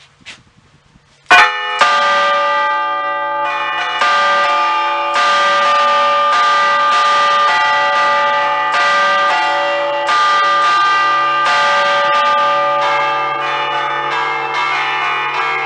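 Five Ambrosian church bells tuned in D, cast by Giorgio Pruneri in 1875, chimed by hand in the festive 'allegrezze a cordette' style: the clappers are pulled on small cords against the hanging bells to play a tune. The chiming starts suddenly about a second in with a loud first stroke, and each stroke rings on under the next.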